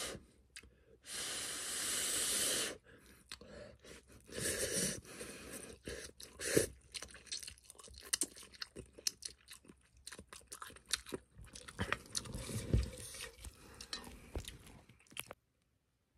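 A person slurping and chewing instant ramen noodles: a long slurp about a second in and another around four seconds, with wet chewing and lip-smacking between. The sound cuts out abruptly near the end.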